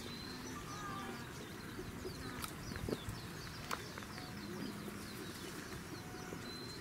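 Small birds chirping over and over with short, high, thin notes, and a few sharp taps about halfway through.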